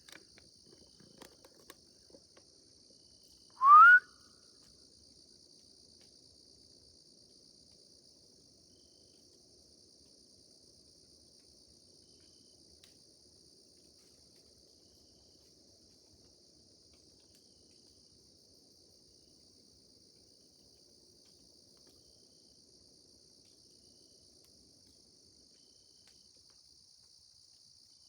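A single short, loud human whistle rising in pitch about four seconds in, given as a call into the woods to draw a response, over a steady chorus of crickets.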